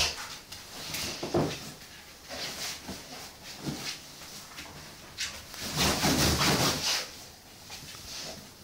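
Dog humping a cushion on a tiled floor: irregular bursts of rustling and scuffing from the fabric and the dog's movements, the longest and loudest about six to seven seconds in.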